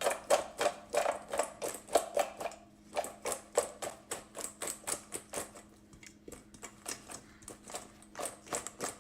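Salad being tossed in a bowl: utensils knocking and clicking against the bowl in a quick, uneven rhythm of about three to four knocks a second, thinning out midway before picking up again.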